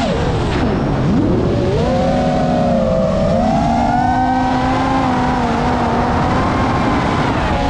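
GEPRC Mark 5 FPV quadcopter's brushless motors and propellers whining. The pitch drops steeply at the start as the throttle is cut, climbs back about a second in, then holds fairly steady.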